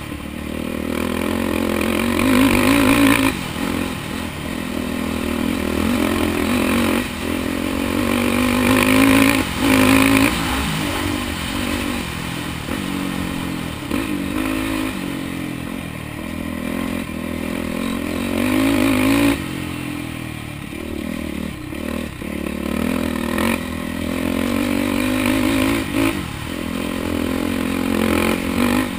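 Yamaha quad bike's engine under way on a dirt track, revving up and easing off again and again as the rider works the throttle, its pitch rising and dropping every few seconds. Scraping and clattering from the machine over the rough ground.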